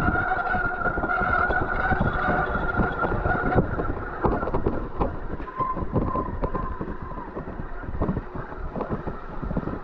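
Mountain bike disc brake squealing in a steady two-note tone while braking, stopping about three and a half seconds in as the bike picks up speed, with a shorter squeal midway; the pads are worn down to their metal backing plates. Throughout, the bike rattles and knocks over a rough, muddy trail.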